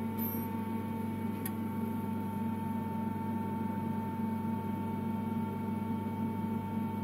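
Steady hum of a Brother HS300 wire EDM machine idling after the cut, with a constant high tone over a low drone. A single light click comes about a second and a half in.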